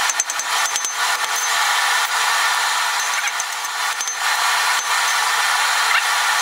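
Steady rushing noise with a few sharp hammer strikes on hot steel at the anvil, from hand-forging mild steel with a ball-pein hammer.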